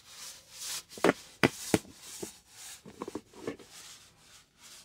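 A small foam paint roller rolling resin over a rough plastered wall, a soft rubbing swish, broken by a few sharp clicks, most of them one to two seconds in and a cluster about three seconds in.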